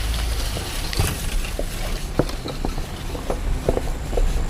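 Jeep driving slowly over a rough off-road trail, heard from inside: a steady low rumble with frequent short knocks and rattles as it goes over the uneven ground.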